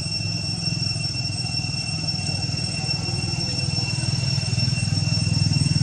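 Steady low buzzing hum, getting a little louder near the end, with two steady high-pitched whines above it.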